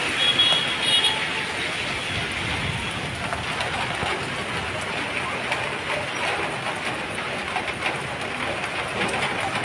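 Heavy rain falling steadily on a wet paved street, an even, unbroken hiss of rain on the road and on parked vehicles.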